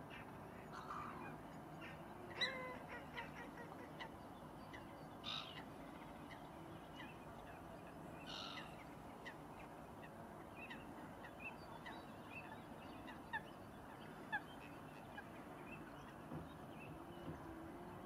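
Mixed wild birds calling: many short, high chirps scattered throughout and a few louder, harsher calls, faint over a steady low background hum.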